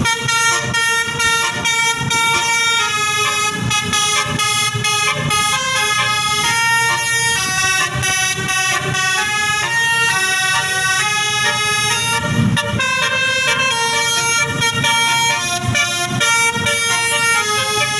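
Basuri V3 musical bus horn playing a 'telolet' tune: a run of held horn notes that step from pitch to pitch several times a second.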